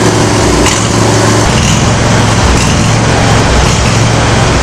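Briggs & Stratton V-twin lawn mower engine running steadily, its valves freshly adjusted.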